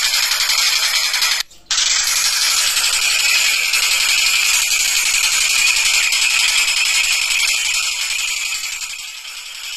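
Tengkek buto kingfisher calling in a fast, continuous rattle over a dense, steady high hiss. The sound cuts out for a moment about one and a half seconds in.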